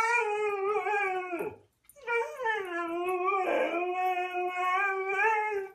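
Siberian husky howling: two long howls, the first breaking off about a second and a half in, the second starting a moment later and held at a steady pitch almost to the end.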